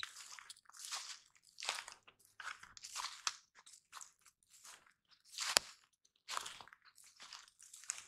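Footsteps crunching through dry leaf litter on a forest floor at a walking pace, about one or two steps a second, with one sharper crack about halfway through.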